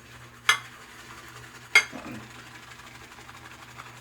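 Shaving brush swirling lather in a copper lathering bowl, with two sharp ringing clinks of the copper bowl, about half a second in and again near the two-second mark.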